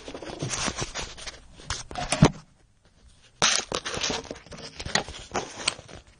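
Irregular scraping and crackling noises in uneven bursts, broken by a short quiet gap partway through.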